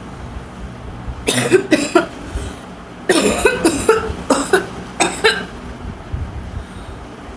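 A woman coughing on purpose, fake coughs for a cough challenge: three quick coughs about a second in, then a longer run of coughs from about three seconds in.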